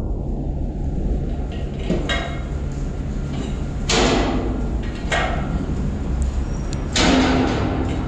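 Steel container lashing gear clanking: four sharp metal knocks with a brief ring as lashing rods and tube buckles are handled and tightened, the loudest about four and seven seconds in. A steady low rumble runs underneath.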